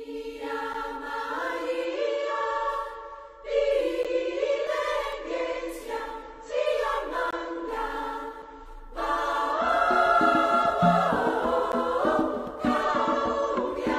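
Choir singing slow, held notes as background music; about nine seconds in the music grows fuller and more rhythmic, with low notes added underneath.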